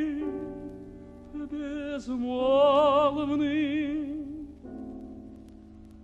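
Lyric tenor singing a Russian romance with piano accompaniment, drawing out the word 'bezmolvny' on a held note with wide vibrato about halfway through. Near the end the voice stops and a soft piano chord rings and fades.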